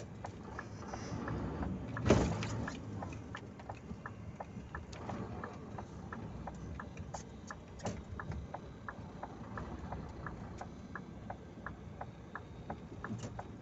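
Dump truck engine idling with a low rumble, under a regular sharp clicking about twice a second and one loud knock about two seconds in.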